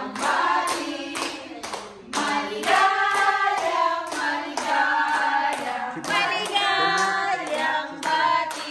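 A group of people singing together, holding long notes, while clapping their hands in time on a steady beat.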